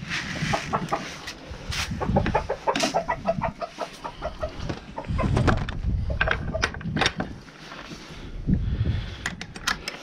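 Chickens clucking in short runs, over a steady rumble of wind buffeting the microphone, with a few sharp clicks and knocks near the end.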